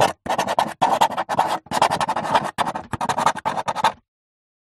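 Marker pen writing, a quick run of short scratchy strokes that stops about four seconds in.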